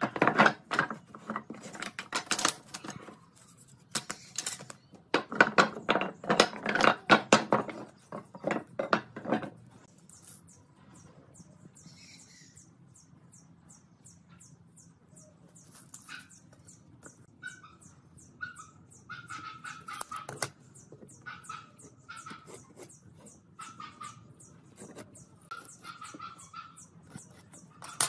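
Pine boards knocking and clattering against each other and the wooden table top as a bundle is set down and sorted, loud and dense for about the first ten seconds. Then quieter light handling and marking sounds, with quick, high bird chirps repeating in the background.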